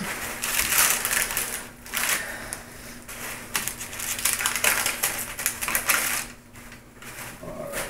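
Paper and plastic wrappers of medical supplies crinkling and rustling as gloved hands handle them, in irregular crackly bursts that die down about six seconds in.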